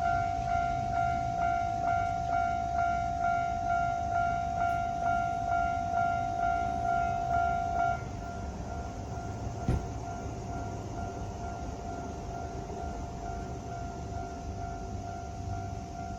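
Japanese level-crossing warning alarm ringing its rapid electronic ding, about three strikes every two seconds. It cuts off abruptly about eight seconds in, leaving a fainter steady tone over a low rumble, with one sharp click shortly after.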